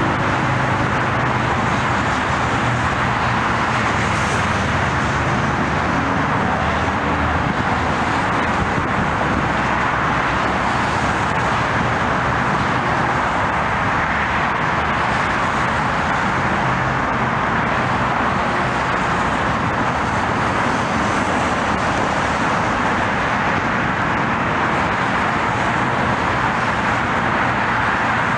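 Steady roar of traffic noise, even in loudness throughout, with a low engine hum in the first few seconds.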